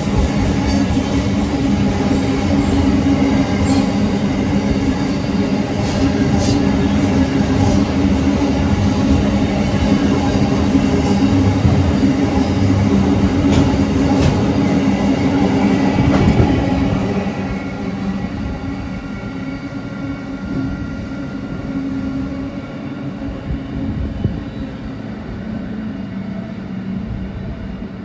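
Freight train passing, with a steady engine drone and the wheels clattering on the rails. The sound drops noticeably and grows duller about sixteen seconds in as the train moves away.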